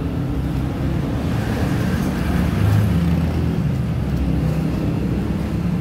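A steady, low engine-like rumble from a motor running in the background, with a slight swell near the middle.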